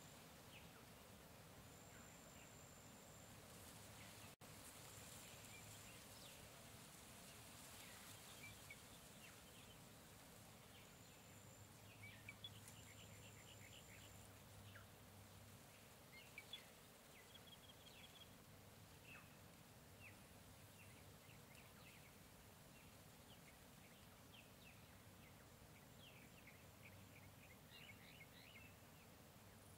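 Faint jungle ambience: scattered short bird chirps and calls over a steady background hiss, with a high, steady insect buzz that comes and goes in stretches of a second or so. There is a momentary dropout about four seconds in.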